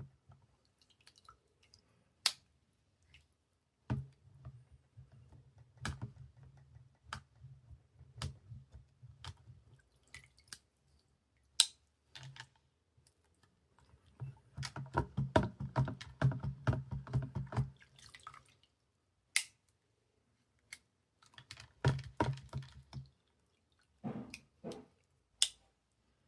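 Workbench handling sounds from cleaning a Victorinox Spartan Swiss Army knife: scattered sharp clicks, and a few seconds of fast repeated strokes about halfway through.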